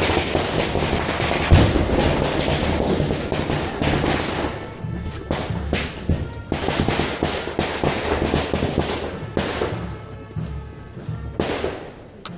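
A string of firecrackers going off in rapid crackling bangs, with a couple of short lulls and thinning out near the end; band music plays underneath.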